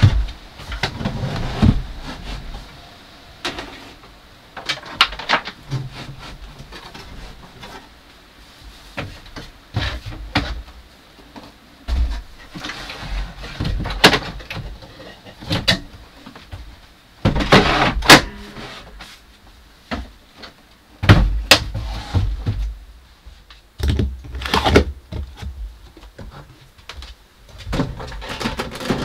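Knocks, thumps and clatter of gear being handled and set down in a small wood-lined cabin: heavy portable battery power stations lifted and slid onto and into wooden shelves, at irregular intervals.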